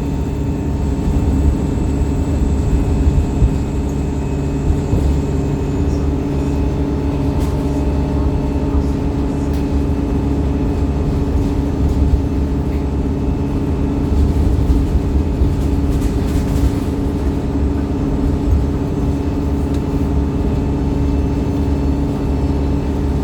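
Wright StreetLite bus's four-cylinder Cummins diesel engine running steadily at a constant speed while the bus is under way, a low drone with a few steady tones over it. A faint high whine fades out about six seconds in, and there are a few light clicks or rattles.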